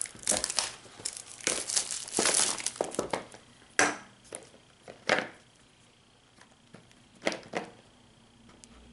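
Cellophane shrink-wrap crinkling as it is peeled off a small cardboard box, with a few separate sharp taps and rustles afterwards as the box is handled and opened.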